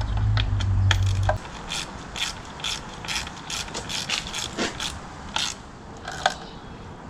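A socket ratchet clicking in a run of short sharp strokes, about three or four a second, as bolts are turned. A loud low steady hum stops about a second and a half in.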